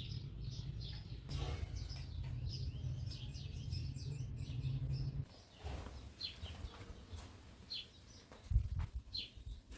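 Small birds chirping in repeated short notes, over a low rumble that cuts off about five seconds in.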